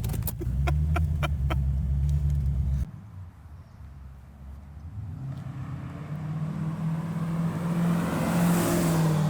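V8 exhaust through Black Widow Neighborhater mufflers, running loud under load with a few sharp clicks near the start, then dropping off suddenly about three seconds in. The engine sound builds again and rises toward the end.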